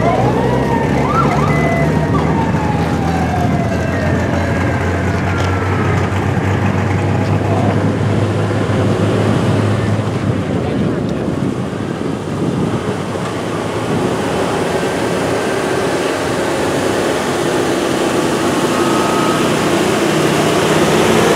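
A fire truck siren sounds in slow falling wails over the first several seconds, above the steady hum of idling and moving engines. Near the end, a vintage fire engine's engine grows louder as it drives up and past.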